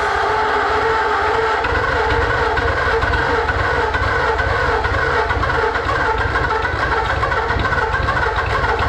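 Starter motor cranking a 1944 Ford flathead V8 over steadily with the throttle held wide open, the engine turning but not catching. The spark plugs are wet from flooding with too much fuel.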